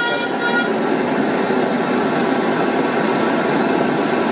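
A vehicle horn gives two short beeps right at the start, over a steady din of street traffic. Battered fish sizzles as it is dropped into hot oil in a wok.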